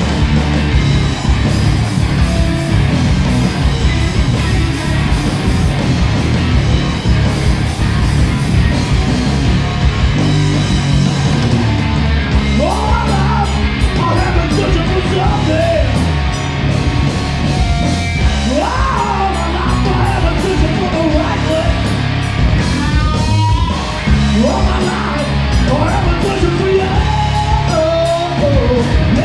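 Live rock band playing loudly, with electric guitars and drums. Yelled vocals come in about twelve seconds in and carry on over the band.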